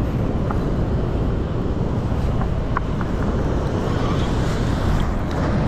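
Steady rushing noise of wind buffeting the microphone over the flow of spillway water.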